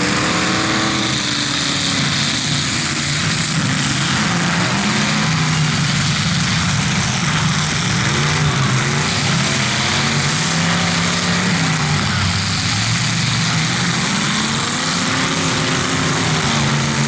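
Several demolition derby cars' engines running and revving, their pitch rising and falling over one another above a steady loud din.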